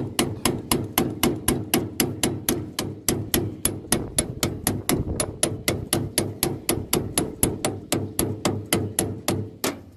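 A hammer rapidly tapping a metal part in a steady rhythm, about five blows a second, each with a bright metallic ring. The tapping stops near the end.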